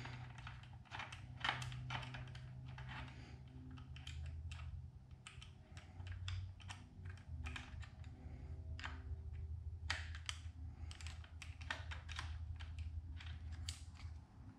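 Irregular light clicks and taps of a hand tool working on small parts of a 1979 Johnson 15 hp outboard's powerhead, as a part is unfastened and removed, over a steady low hum.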